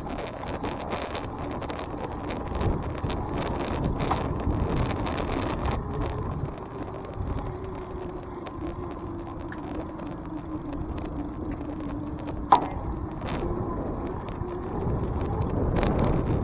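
Steady street traffic noise, with a vehicle's hum holding for several seconds midway and a few sharp clicks.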